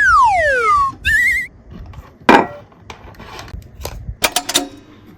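A falling whistle-like sound effect slides down for about a second, followed at once by a short warbling tone that wobbles upward. After that come a sharp knock and then a few clicks and clacks of small hard toy pieces being handled.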